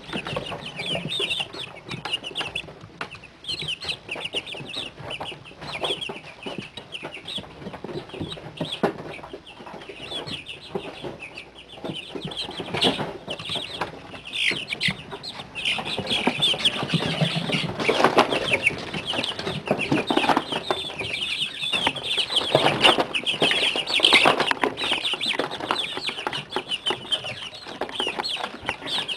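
A flock of month-old chicks peeping and cheeping together, many short high chirps overlapping without a break. A stretch of louder rustling and scuffling comes through in the middle.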